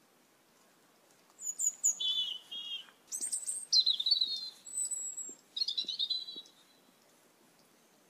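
Asian glossy starlings calling: several short phrases of high chirps and whistles, starting about a second and a half in and stopping about six and a half seconds in.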